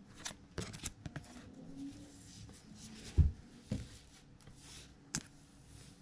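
Trading cards and card packaging being handled on a table: scattered light clicks and rustles, with a dull thump about three seconds in and a smaller one just after.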